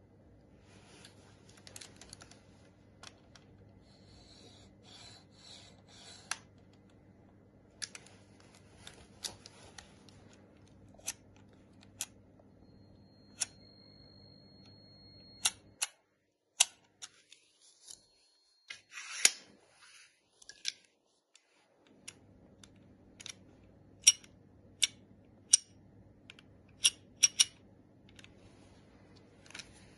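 Irregular sharp metallic clicks and short scrapes as the aluminium magazine and adjustable guides of a pneumatic picture-frame V-nailer are slid and snapped into place by hand. A faint steady hum lies underneath.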